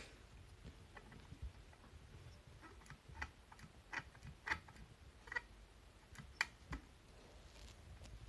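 Irregular faint clicks and light ticks, a handful of sharp taps spaced unevenly over several seconds, with no engine running.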